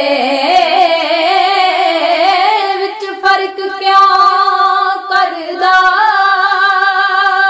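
Two girls singing a Punjabi devotional song together, drawing the words out into long held notes, with short breaks for breath about three seconds in and just after five seconds.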